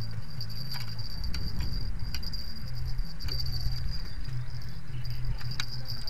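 Insects trilling steadily at a high pitch over a steady low rumble, with a few sharp clicks now and then.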